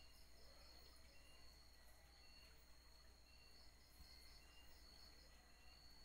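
Near silence with faint insects chirping: a steady high trill, short chirps roughly once a second, and a couple of quick pulsed runs.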